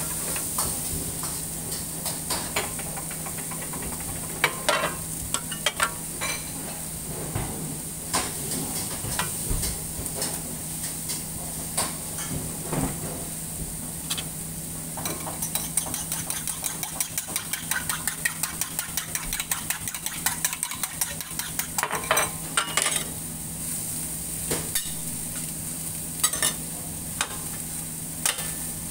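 Beef and diced vegetables sizzling on a flat steel teppan griddle: a steady hiss with many sharp crackling pops and clicks, thickest in a quick run through the middle, over a steady low hum.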